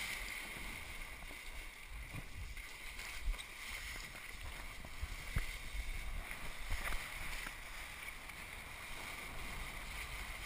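Steady rush of water and wind from a twintip kiteboard planing across the sea, with a few soft knocks as the board meets the chop.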